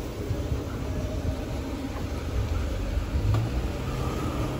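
Low, steady street rumble with an SUV driving past close by, its engine and tyres swelling briefly about three seconds in.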